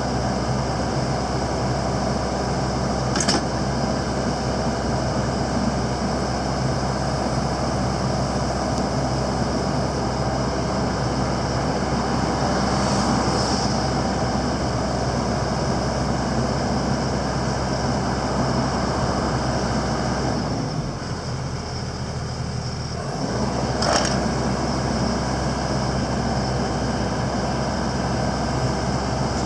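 Komatsu PC78 excavator's diesel engine running steadily during a test run. The engine note drops for about two seconds a little after twenty seconds in, then picks back up. Two sharp clicks sound, one about three seconds in and one near twenty-four seconds.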